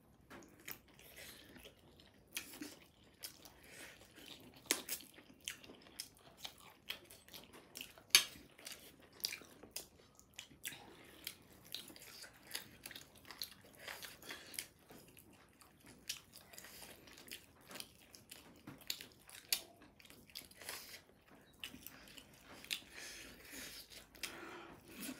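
A person chewing and biting food, with irregular light clicks and crunches. One sharper click about eight seconds in is the loudest.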